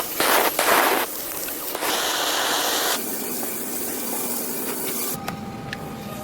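Hissing spray in short loud bursts, then a steadier, quieter hiss; faint steady tones come in near the end.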